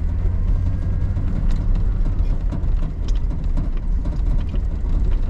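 Car running, heard from inside the cabin: a steady low engine and road rumble with faint scattered ticks.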